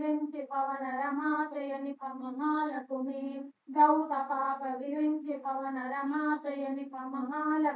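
A woman singing a line of a devotional Kannada verse in a slow melodic chant, heard through a video call, with a brief pause for breath about three and a half seconds in.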